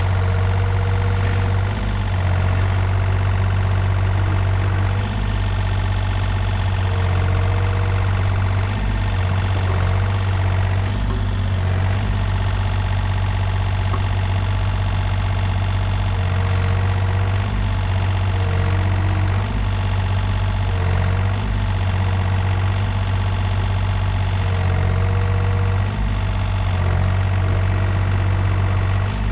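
Takeuchi TB235-2 mini excavator's diesel engine running steadily under load, with a higher whine that comes and goes, as the machine works its bucket to drag itself out of the mud.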